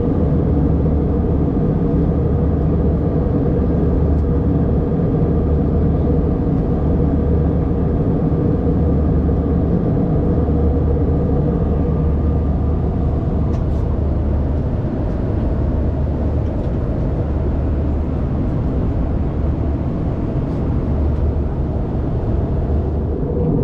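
Steady, unchanging drone of a jet airliner's engines and airflow heard from inside the cabin in flight.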